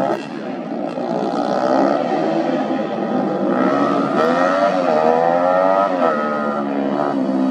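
Supermoto race motorcycle engines running and revving as several bikes ride past, their pitch climbing about four seconds in and dropping again near six seconds.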